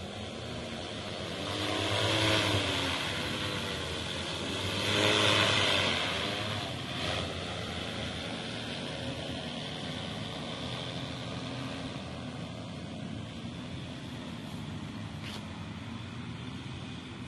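Multirotor agricultural sprayer drone's propellers buzzing in flight. The buzz swells louder twice in the first six seconds with its pitch bending up and down, then settles to a steadier, quieter hum.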